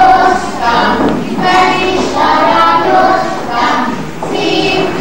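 A group of young kindergarten children singing a ring-game song together, in short phrases with brief breaks between them.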